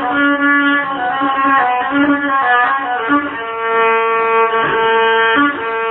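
Instrumental break of an Arabic song: plucked strings with a melody of held notes, between sung lines.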